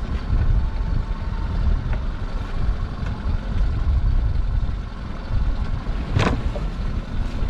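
Steady low rumble of the idling boat engine. About six seconds in, a single sharp knock as the lobster pot is pulled up over the gunwale.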